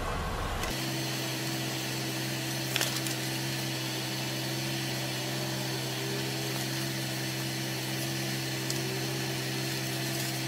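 Steady machine hum of several even, unchanging tones over a light hiss, with a faint click about three seconds in.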